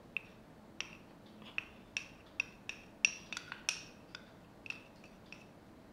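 Faint, light clinks against a glass mixing bowl, about a dozen small taps spread irregularly over several seconds, as custard powder is tipped into cold milk and mixed in.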